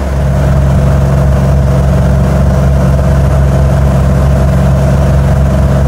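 Cessna 175's piston engine and propeller running steadily at a constant pitch.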